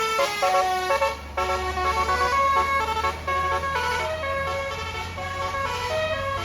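Bus 'telolet basuri' multi-tone air horn playing a melody of quickly changing notes, over the steady low hum of the bus engine.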